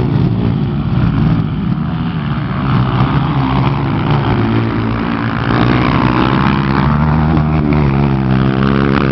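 Motocross dirt bikes racing, their engines revving up and down through the gears and overlapping at different pitches.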